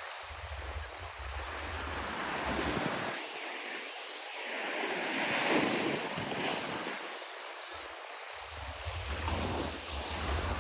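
Black Sea surf washing onto the shore, a steady rush of breaking waves that swells to its loudest about halfway through. Wind buffets the microphone with a low rumble at the start and again near the end.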